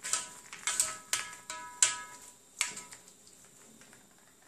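Silicone pastry brush knocking and scraping against a round black baking tray as the tray is greased with oil. Each knock sets the tray ringing briefly at the same few pitches: about seven irregular knocks in the first three seconds, then only faint brushing.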